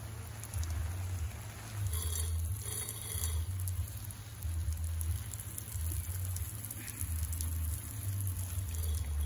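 Water spray from a garden hose pattering onto plants, over a low, uneven rumble.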